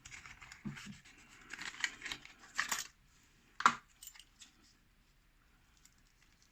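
Small metallic clicks and rattles of a heavy padlock being handled, with one sharp metal click a little over halfway through, then quiet handling.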